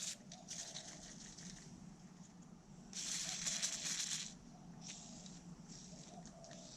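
Faint handling noise from a ratchet strap being moved about, with a louder rustle lasting about a second near the middle.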